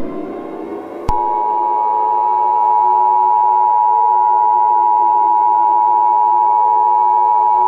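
Emergency Alert System attention signal, the two-tone 853 and 960 Hz alarm, starting about a second in and held steady, over a synthesizer drone whose tones slowly rise in pitch in the first second.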